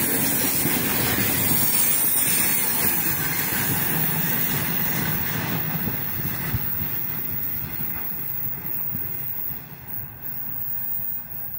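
Wheels of a freight train's open wagons rolling on the rails as the end of the train passes and draws away. The noise fades over the last few seconds.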